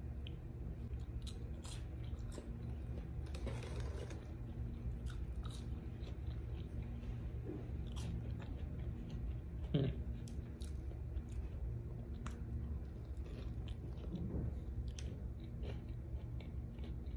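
Close-up chewing and biting of a crispy fried chicken sandwich, Popeyes' spicy chicken sandwich, with scattered crunches and crackles of the fried breading. A brief falling sound about ten seconds in is the loudest moment.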